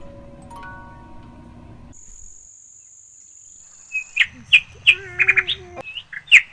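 Backyard birds chirping loudly, with sharp single calls and quick runs of chirps, from about four seconds in. Before them comes a steady high insect whine of about two seconds, and soft music ending in the first two seconds.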